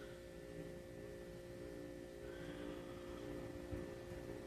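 Steady low electrical hum made of a few constant tones, with faint soft rustles above it.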